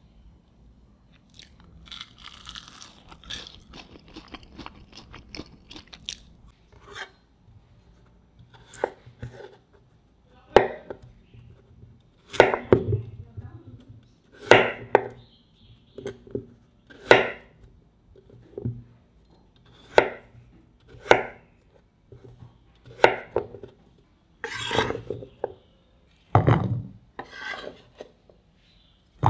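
A few seconds of crisp fried potato sticks crunching, then a kitchen knife cutting peeled raw potatoes on a wooden cutting board, with sharp chops every one to two seconds.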